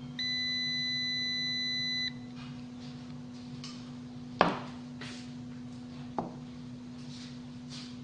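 Digital multimeter's continuity buzzer sounding one steady, high beep of about two seconds as its probes bridge the terminals of a microwave oven's high-voltage capacitor; a tone across those terminals marks the capacitor as bad. About two seconds after the beep stops comes a sharp knock, and a lighter one follows nearly two seconds later.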